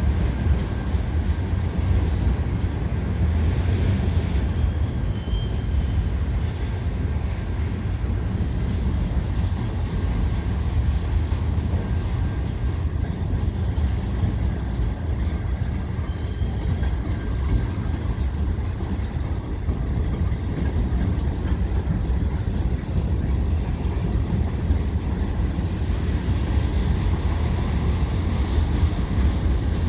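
Canadian National mixed freight train rolling across a railway bridge: a steady, loud rumble of the cars passing, with no horn sounding.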